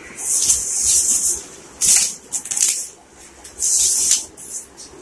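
Small paper cards rustling and sliding on a floor mat as a child's hands scatter and gather them, in several short bursts.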